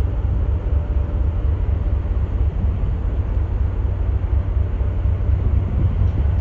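Wind buffeting the microphone outdoors: a constant low rumble that flutters without pause, with a faint hiss over it.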